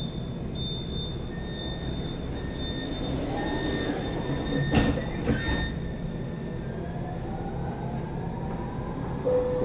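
Brescia metro train running, heard from inside the car: a steady rumble with a whine that rises slowly in pitch as the train picks up speed, and two clunks about halfway through. An on-board announcement chime starts right at the end.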